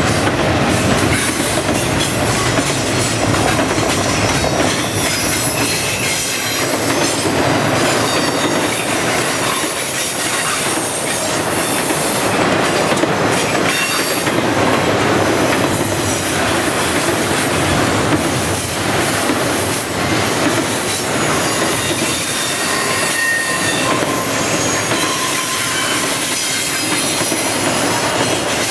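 Double-stack intermodal freight cars rolling past on a curve, a steady rumble of steel wheels on rail. Brief high-pitched wheel squeals come and go throughout, from the flanges rubbing on the curved track.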